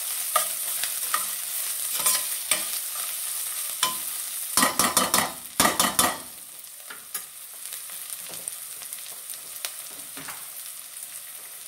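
Chopped onion and ginger-garlic paste sizzling in oil in a stainless steel pan, sautéing to cook out the raw taste. A spoon scrapes and clacks against the pan while it is stirred, hardest around the middle. After that the stirring stops and only the sizzle goes on, quieter.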